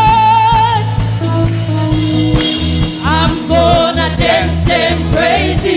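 Live praise band playing an upbeat gospel song, drum kit and bass keeping a steady beat, with voices singing over it; a voice holds a long wavering note that ends about a second in.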